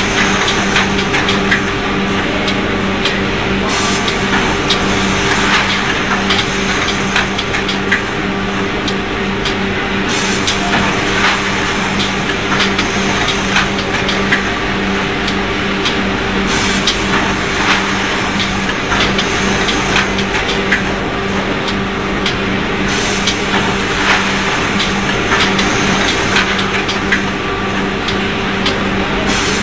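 Automatic woven-bag packaging machine running: a steady machine hum with frequent clicks and clatter from its mechanisms, and a high hiss that comes on and cuts off every several seconds.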